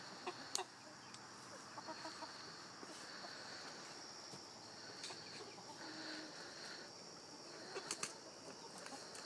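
Hens clucking softly and scratching through a compost pile while a manure fork tosses compost, with scattered light clicks and rustles and a burst of wing flapping about eight seconds in. A steady high insect trill, like crickets, runs underneath.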